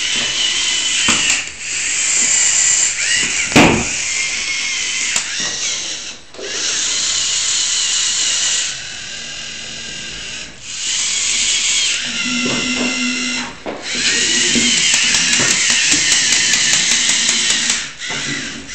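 LEGO Mindstorms NXT robot's geared electric motors whirring in a high, drill-like whine, stopping and starting several times as the robot drives and works its arms. There is a sharp click about three and a half seconds in.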